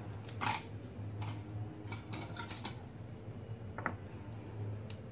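Ceramic bowls and a spoon handled on a stone countertop: a short clatter at the start, a quick run of light clicks about two seconds in, and one sharp clink near the four-second mark, over a faint steady low hum.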